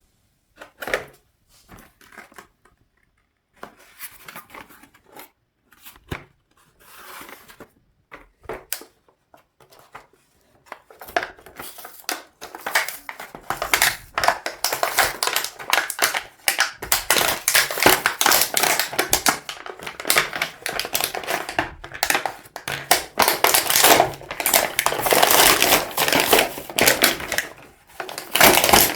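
Packaging being handled and unwrapped: scattered clicks and light rustles at first, then dense, continuous crinkling and crackling from about eleven seconds in.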